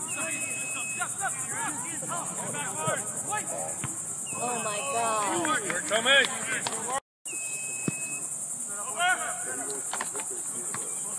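Steady, high-pitched insect chorus droning continuously, with scattered distant shouts over it. The audio drops out completely for a moment about seven seconds in.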